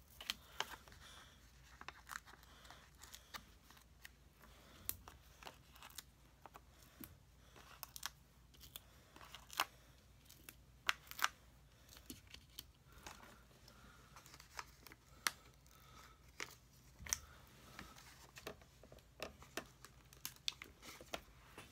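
Small foam adhesive dots (Stampin' Up! Dimensionals) being peeled one after another off their backing sheet and pressed onto a cardstock panel. The sound is a string of soft peels, paper rustles and small irregular clicks and taps.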